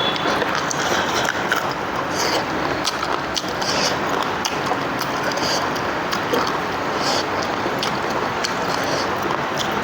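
Eating sounds: irregular wet chewing clicks and lip smacks over a steady background noise.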